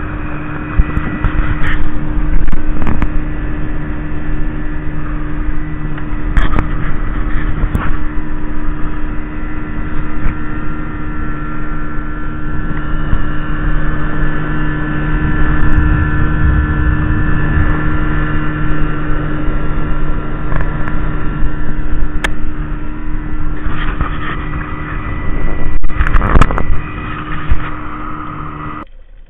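Motorboat engine running steadily under way, with wind and rushing water and a few short thumps. The sound cuts off abruptly at the very end.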